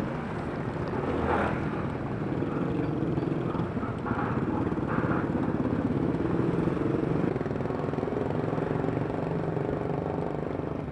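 Motor scooter engine running steadily, with road or traffic noise.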